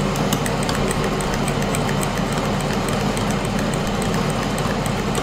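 Ninja Foodi Max multicooker running hot: a steady fan whir over a low hum, with quick light ticks or crackles throughout, several a second.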